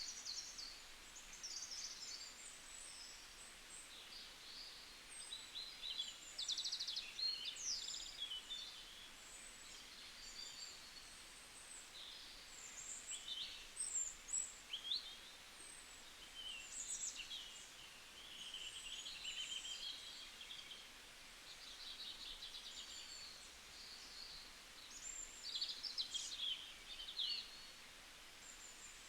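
Several small birds chirping and trilling in short, overlapping high-pitched calls over a faint steady background hiss.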